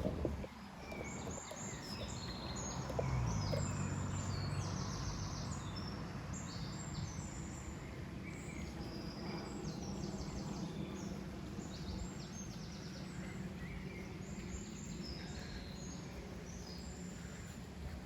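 Many small birds chirping and trilling in short high calls throughout, over a steady low hum that grows louder about three seconds in.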